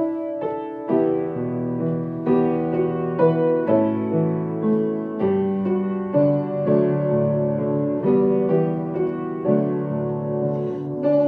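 Piano playing the slow introduction to a hymn-like song, sustained chords with a new chord struck about every second.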